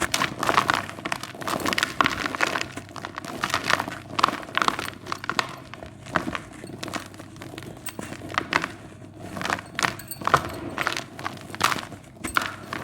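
Dry white cement crumbling: a steady run of irregular, gritty crunches and crackles.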